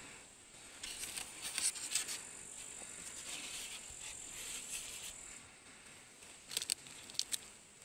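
Faint clicks and rustles of handling, in two clusters about a second in and again near the end, over a steady high-pitched whine.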